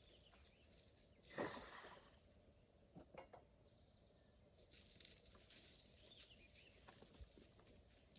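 Near silence: faint outdoor background with a steady high faint tone, broken by one brief rustle about a second and a half in and a few faint clicks.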